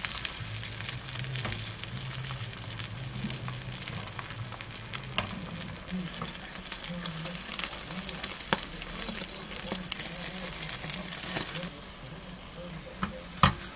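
Beaten egg sizzling in a hot, oiled rectangular egg-roll pan while a wooden utensil works and folds the setting egg. The sizzle thins out about twelve seconds in, and a single sharp knock comes near the end.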